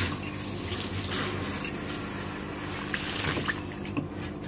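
Water running from a hand-held shower head into a bathtub while a toddler's porridge-smeared hands are rinsed; the water is turned off about four seconds in.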